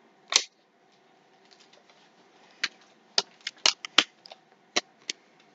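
Plastic water bottle crackling and clicking as it is handled and drunk from: a lone click, then a quick irregular run of sharp clicks about two and a half seconds in.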